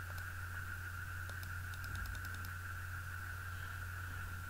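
Steady low electrical hum with a high-pitched whine, and faint scattered clicks, clustered around the middle.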